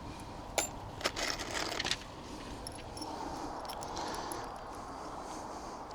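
Loose metal screws clinking as they are picked out of a container by hand, with a few sharp clicks in the first two seconds, then only faint handling noise.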